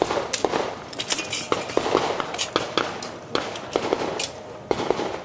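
Pistol shots on a match range, about fifteen sharp cracks at an uneven pace, some in quick pairs.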